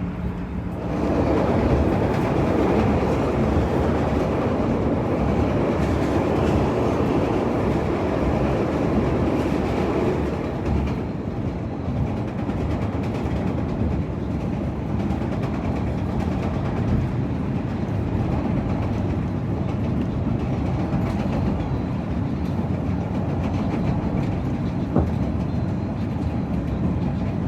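Chicago CTA Blue Line rapid-transit train running on the rails, a steady rumble of wheels and car that grows louder about a second in and is strongest for the first ten seconds or so before settling to an even level.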